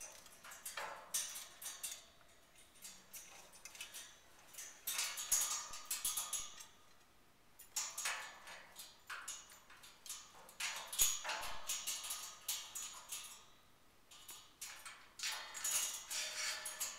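Female Eclectus parrot moving about and playing in her metal wire cage: about five bursts of light, quick clicking and rattling from beak and feet on the bars, grate and toys, with quiet gaps between.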